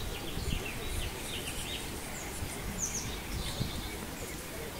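Small birds chirping repeatedly, with a couple of quick falling whistles, over a steady low rumble of outdoor background noise.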